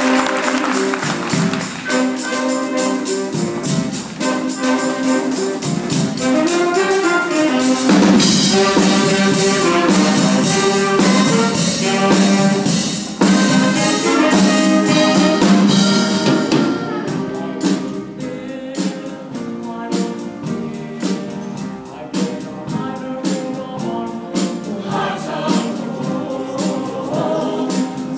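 Show choir singing with musical accompaniment. From about two-thirds of the way in, a sharp, even beat comes to the fore under the voices.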